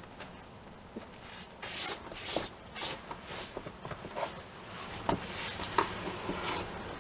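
Taffeta underskirt rustling in a string of short swishes as it is fastened and shifted on the body, with a few soft knocks in the second half.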